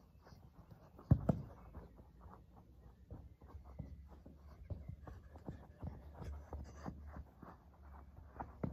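Running footsteps and scuffs on grass with a football being kicked, many short irregular knocks. The loudest is a sharp double thump about a second in.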